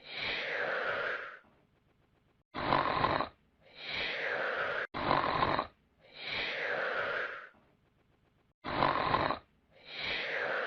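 Cartoon snoring sound effect: a snore on the in-breath alternating with a breathy whistle falling in pitch on the out-breath, repeating about four times.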